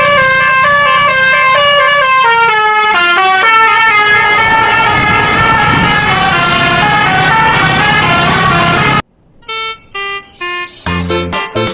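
A bus's 'telolet' basuri musical horn playing a melody of short chords that step from note to note, with the bus engine running underneath. It cuts off abruptly about nine seconds in, and a music track with a bass line starts.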